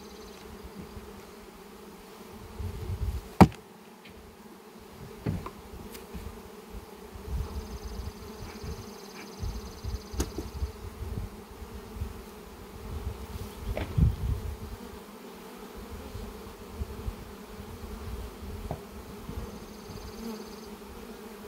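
Honey bees buzzing in a steady hum around an opened hive, with a few sharp knocks as wooden hive frames and boxes are handled, the loudest about three seconds in.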